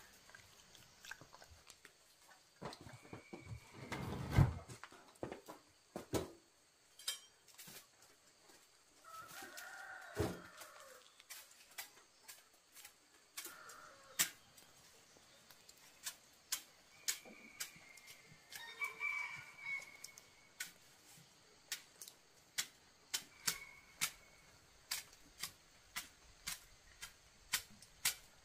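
Chickens cluck and a rooster crows now and then, with a heavy thump about four seconds in. From about halfway on, a knife chops steadily through banana stalks with sharp, regular strikes, a little more than one a second.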